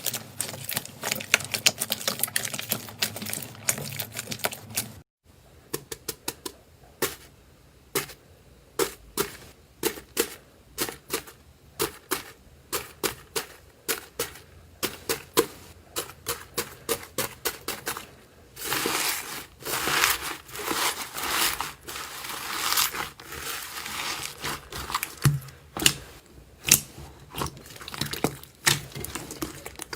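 Slime being pressed and handled, giving a fast run of small crackling clicks, then after an abrupt cut about five seconds in, slower separate clicks and pops, with a few seconds of denser crackling noise in the second half.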